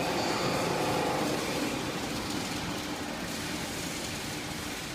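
Steady machine hum from a YD-1000 scrap metal baling press running, with a few faint steady tones; the higher tones fade out after about a second and a half.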